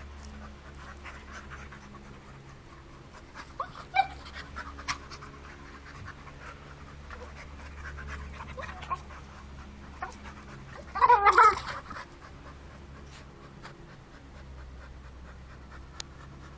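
Two dogs play-fighting, panting hard, with scattered sharp clicks and scuffles. About eleven seconds in, one dog lets out a short, loud burst of vocalising.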